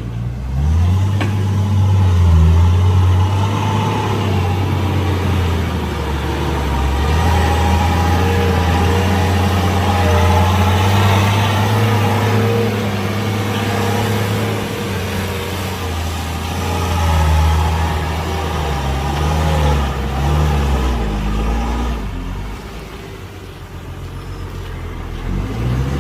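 Heavy diesel engine of earthmoving machinery running under load. It picks up about a second in and holds steady, its pitch wavers a few times past the middle, then it eases off and rises again near the end.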